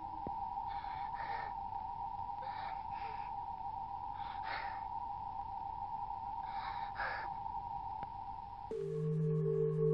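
A child's sobbing breaths, shaky sighs and gasps in pairs about every two seconds, over a single held musical tone. Near the end the tone cuts off and a deeper ringing, bell-like tone with a low hum takes over.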